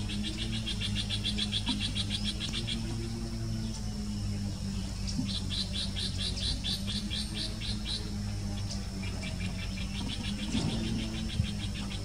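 A calling animal giving bouts of a rapid high-pitched pulsing trill, about five pulses a second, each bout lasting two to three seconds and repeated three times, over a steady low hum.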